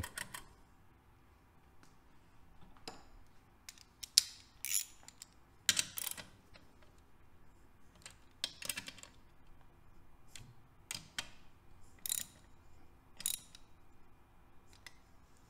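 Hand socket ratchet wrench clicking in short bursts as a bolt is run down in an engine crankcase, with small metal clinks between the bursts.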